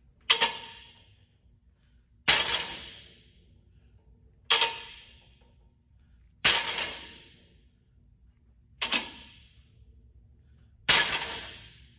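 Plate-loaded barbell clanging down onto a power rack's steel safety arms six times, about every two seconds, each strike ringing briefly. Each clang is the bottom of a rep, where the bar comes to rest before it is pressed up explosively.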